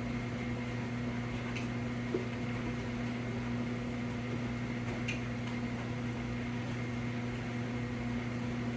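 Steady low electrical hum of a running appliance or fan, with two faint ticks.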